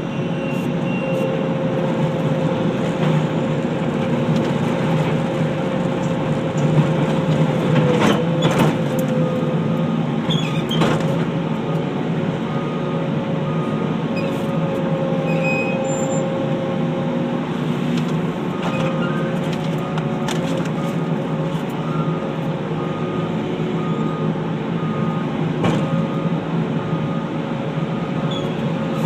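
Skid steer loader engine running steadily at work, with a backup alarm beeping in an even rhythm for long stretches and a few sharp knocks.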